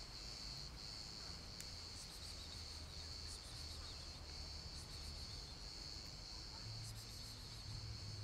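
A steady, high-pitched insect chorus: one continuous trill that holds the same pitch throughout.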